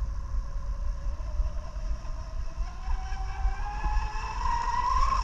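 Twin 1900 kV brushless motors of a Pro Boat Miss Geico 36-inch RC catamaran whining as the boat runs across the water. The pitch rises steadily as it picks up speed and is loudest near the end.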